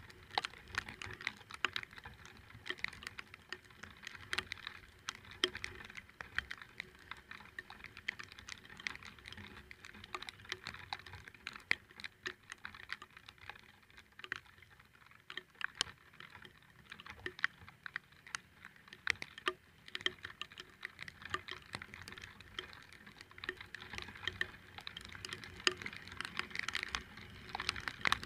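Raindrops striking a hard surface right by the microphone, heard as dense, irregular clicks.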